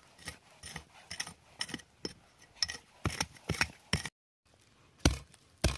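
Small hand hoe chopping and scraping into the soil of a bamboo grove, digging for a winter bamboo shoot: a string of sharp strikes at uneven intervals, the heaviest near the end.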